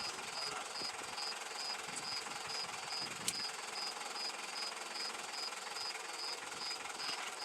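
High-pitched insect chirp repeating evenly about two and a half times a second over a steady background hiss, with one sharp click about three seconds in.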